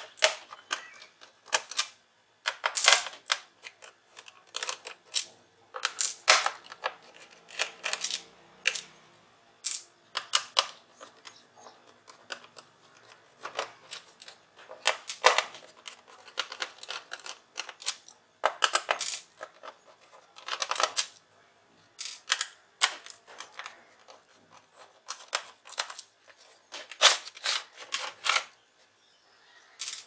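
A screwdriver working small screws out of an HP notebook's plastic bottom case, with the loose screws handled and set down: sharp clicks and taps at irregular intervals, some in quick clusters.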